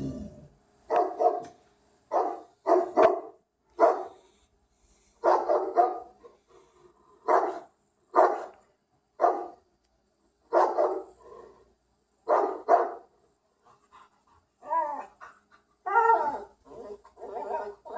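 Dog barking in short separate barks, often two or three in quick succession, with pauses of a second or more between. Near the end a few barks waver in pitch, like whining yelps.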